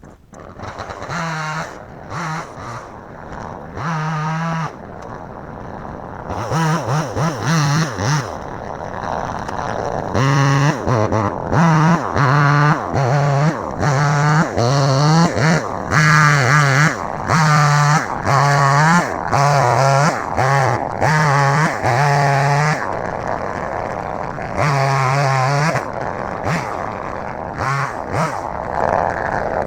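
Two-stroke chainsaw revved up again and again while cutting, its pitch wavering as the engine bogs under load in the wood, with short throttle blips at first and longer, denser cutting runs from about a third of the way in.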